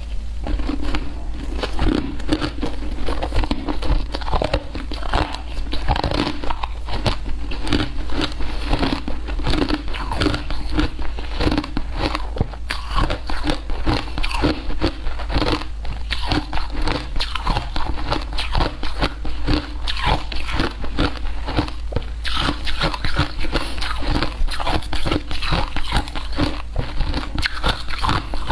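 Close-miked crunching and chewing of a mouthful of shaved ice: a quick, unbroken run of crisp crunches.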